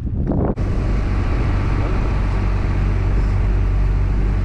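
A motor running steadily with a low hum, starting abruptly about half a second in and cutting off suddenly at the end, after a moment of rustling from handling the catch.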